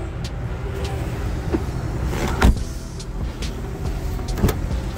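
SUV doors being handled: a rear door shuts with a solid thump about halfway through, then the front door handle clicks as it is pulled near the end. A steady low rumble runs underneath.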